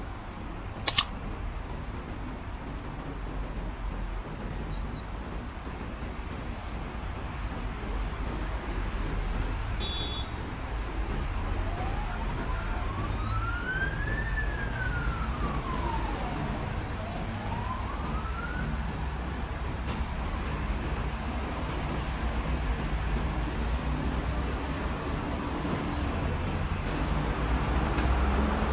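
Steady street traffic rumble, with a distant emergency-vehicle siren in the middle that wails slowly up, down and up again. A sharp click sounds about a second in.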